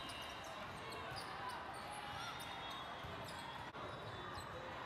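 Indoor volleyball hall ambience: a crowd chatters and calls out, over the knocks of balls being hit and bouncing and short squeaks of court shoes on the sport floor. The sound briefly drops out a little under four seconds in.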